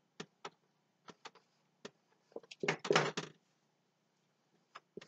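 Dry-erase marker tapping and scraping on a whiteboard as numbers are written, a string of short ticks with a longer, louder stroke about three seconds in.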